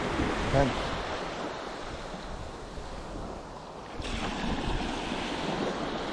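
Small waves washing at the shoreline with wind buffeting the microphone, as a steady rushing noise. A short voice sound comes about half a second in, and the noise turns abruptly brighter about four seconds in.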